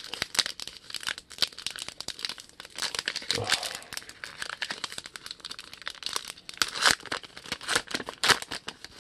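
A trading-card pack's wrapper being torn open and crinkled in the hands: a dense, irregular run of crackles and rustles.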